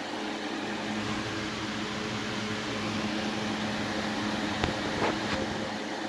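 Steady mechanical hum, with two short clicks near the end.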